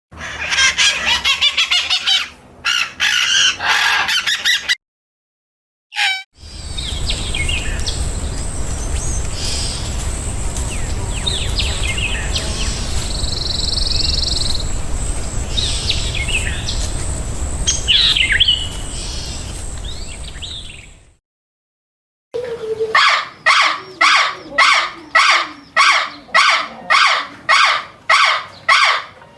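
Wild songbirds chirping and calling, in three separate stretches split by short silent gaps. The middle stretch has scattered chirps over a steady low rumbling background, and the last is one bird repeating the same call about twice a second.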